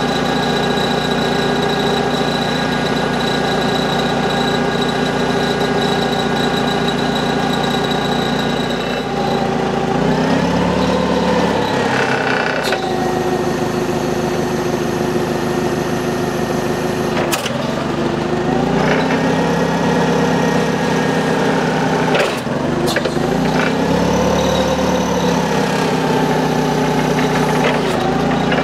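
Propane forklift engine idling steadily, then revving up and settling back three times as the mast and forks are worked, with a few sharp clunks in between.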